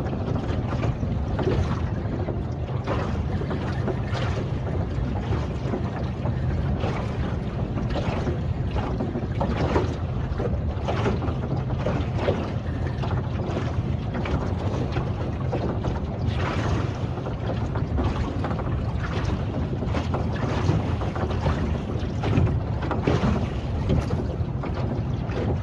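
Small boat's outboard motor running steadily at low revs, with wind buffeting the microphone.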